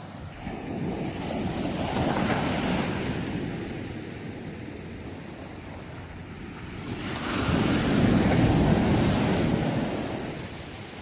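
Ocean waves breaking and washing in, two surges about six seconds apart, each building up and then fading away.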